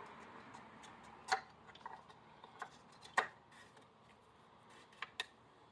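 About six scattered light clicks and taps of parts being handled under the hood: the oil filler cap and dipstick being put back and the engine bay closed up after the oil level check.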